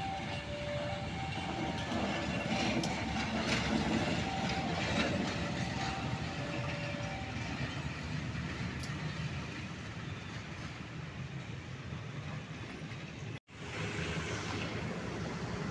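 KAI diesel-electric locomotive running light past, its engine running and wheels rolling over the rails. The sound cuts out for a moment near the end.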